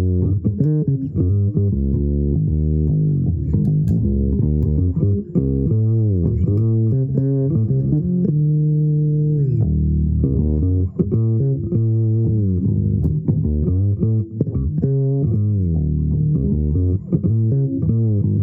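Bass guitar played solo in an improvised line of low plucked notes, some of them sliding in pitch.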